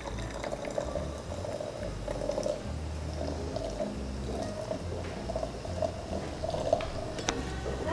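7-Up lemon-lime soda poured from a can in a thin stream over ice into a glass jar, splashing steadily.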